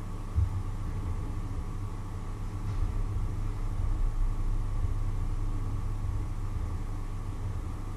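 Low, steady rumble with irregular surges and a faint hum above it, from pots of water heating on an electric hob.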